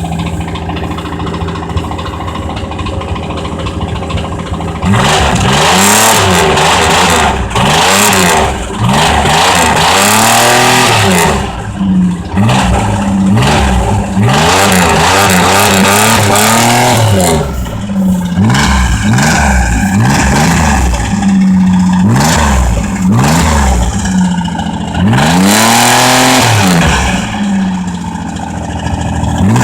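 GM 2.8 V6 engine in a 1982 Camaro, running with a rod knock. It idles steadily, then from about five seconds in it is revved hard again and again, the pitch climbing and falling with each blip and held high for a second or two at a time.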